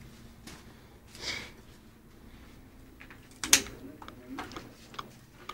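Small handling sounds of a bouquet of cut flowers being arranged on wrapping: a soft rustle about a second in, a sharp click about three and a half seconds in, and several lighter ticks.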